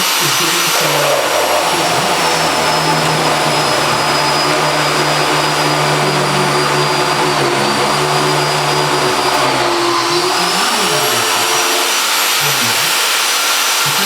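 A high-speed electric motor running steadily with a loud hiss and a high whine. The pitch sags briefly about nine and a half seconds in, then comes back up.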